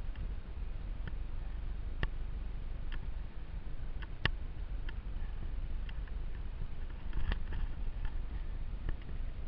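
Steady low rumble of wind and handling on a moving camera's microphone, with sharp knocks about once a second from travel over a stony trail. The loudest knock comes a little past four seconds in.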